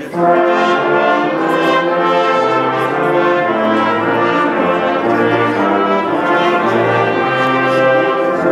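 Church brass ensemble (a Posaunenchor of trombones and tuba) playing slow, sustained chords, the bass moving note by note beneath held upper voices; a new phrase enters right at the start.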